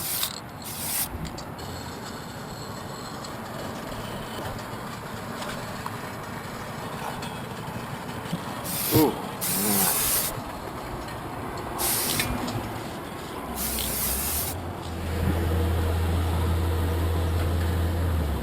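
Aerosol spray-paint cans hissing in several short bursts, about five across the stretch, some a fraction of a second and one nearly a second long. A low steady hum sets in after about thirteen seconds and becomes the loudest sound.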